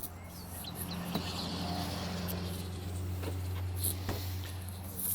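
6.6-litre Duramax V8 turbodiesel idling with a steady low hum, with a few light clicks.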